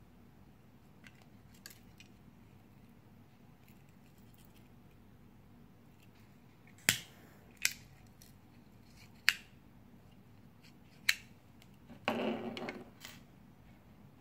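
Metal folding-knife gas lighter being handled: four sharp metallic clicks spread over about four seconds, then a short clatter as it is laid down on a wooden table.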